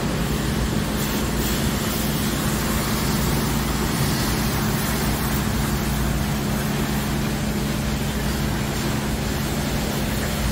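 Automatic car wash tunnel equipment running: a steady rush of air or water over a constant low machine hum.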